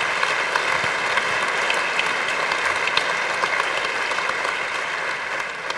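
Audience applause, many hands clapping steadily, dying down near the end.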